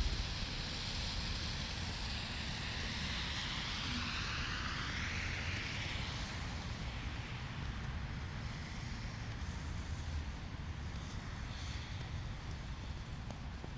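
Street ambience in a snowstorm: a steady hum of city traffic, with a passing vehicle's tyres hissing by, swelling and fading over the first several seconds.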